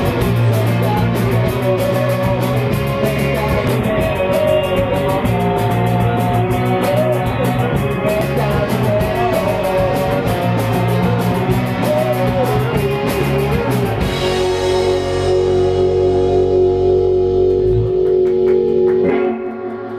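Rock band playing: electric guitars, electric bass and a drum kit with steady cymbal hits. About two-thirds of the way through the drums stop and the final chords ring on, fading out at the very end.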